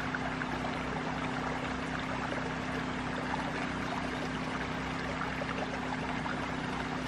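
Steady rushing noise with a faint steady hum underneath.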